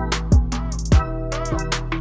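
Background hip-hop style music: held synth chords over a drum machine beat, with deep falling-pitch kick drums and crisp hi-hats.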